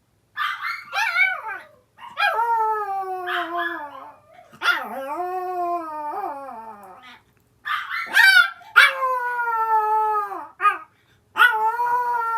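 Small dogs: a few short yips about half a second in, then a Yorkshire terrier howling in four long calls, each sliding slowly down in pitch, in answer to the other dog's barking.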